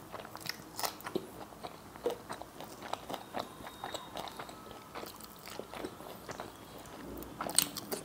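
Close-miked eating: a person biting into a raw green chilli and chewing, with many short crunches and wet mouth clicks, and a louder burst of crunching about seven and a half seconds in.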